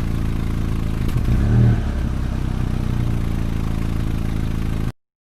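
Jeep engine running steadily with a low, even drone, swelling briefly about one and a half seconds in. It cuts off abruptly near the end.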